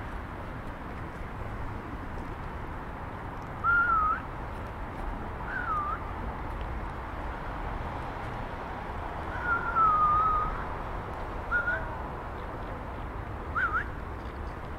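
Five clear whistled notes, each a single pure tone that bends a little in pitch; the longest, a drawn-out note about two-thirds of the way in, lasts about a second. They stand out over a steady low city hum.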